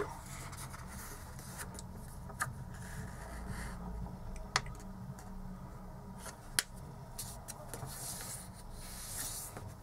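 A sheet of paper being folded in half by hand on a cutting mat: soft rubbing and sliding as the fingers smooth and crease the fold, with a few sharp little ticks, the loudest about halfway through and again a couple of seconds later.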